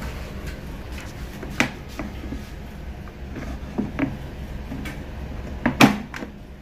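Air fryer basket being slid into its Black+Decker air fryer housing: a series of plastic knocks and clacks, with the loudest clack near the end as the basket seats home.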